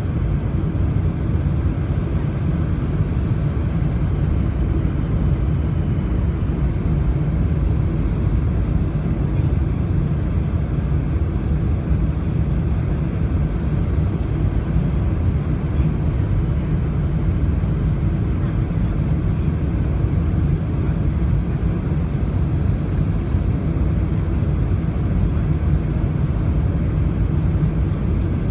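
Steady low cabin noise inside a Boeing 747-400 on final approach, from its four Rolls-Royce RB211 engines and the airflow over the wing with the flaps fully extended.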